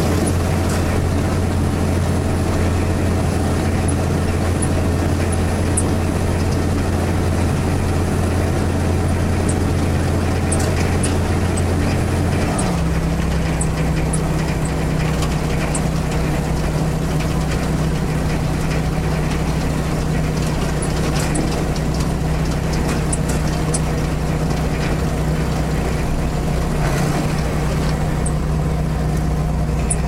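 Underhaug 2600 potato harvester and its tractor running in the field, a steady engine drone with a light rattling of machinery over it. About twelve seconds in, the engine drone drops to a lower pitch and holds there.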